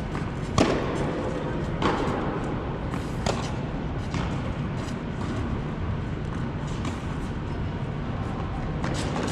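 Tennis ball struck by rackets and bouncing on a hard indoor court: three sharp pops in the first few seconds, the third fainter, then another near the end, each ringing briefly in the large hall over a steady background hum.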